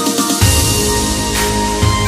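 Background music: an electronic track with sustained synth notes, a heavy bass line coming in about half a second in.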